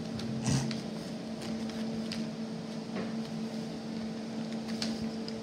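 A steady electrical or mechanical hum with two even tones, a low one and a higher one, and a few faint clicks and rustles.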